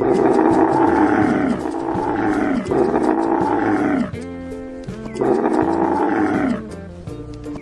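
A large animal roaring four times, each call about a second or more long and falling in pitch, with background music between the calls.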